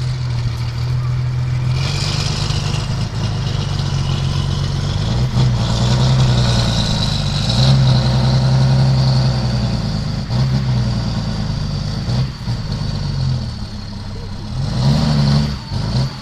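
Diesel engine of an off-road trial truck working hard under load as it crawls out of a ditch, its revs rising and dipping again and again, with a high whine above it. Near the end it revs up sharply once.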